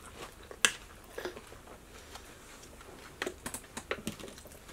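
Close-miked eating sounds: scattered crisp bites and chewing with light clicks, the sharpest click about half a second in and a cluster near the end.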